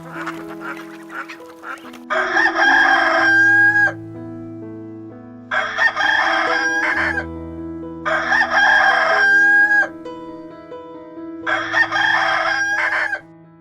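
A rooster crowing four times, a few seconds apart, each crow ending in a long held note, over background music.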